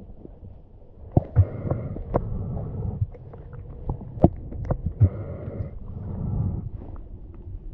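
Muffled underwater sound heard through a camera's waterproof housing: a low, uneven rumbling with many sharp clicks and knocks scattered through it, and a brief hiss twice.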